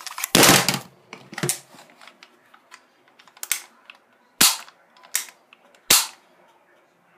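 Daisy Powerline 340 spring-air BB pistol's plastic-and-metal action worked by hand. A longer, rattling snap comes about half a second in, followed by a string of single sharp clicks and snaps about a second apart.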